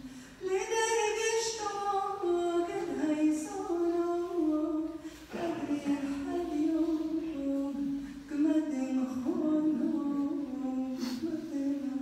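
A woman singing a slow unaccompanied melody, holding long notes that step up and down, with a short break about five seconds in.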